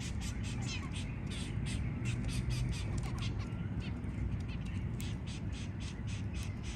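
Zebra finches calling: rapid, high, harsh chirps, about six a second, over a steady low rumble.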